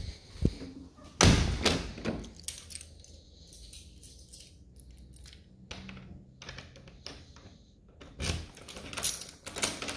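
A French door is pulled shut with a loud thud about a second in. Near the end, a bunch of keys jangles and clicks as a key is put into the door's lock and turned to lock it.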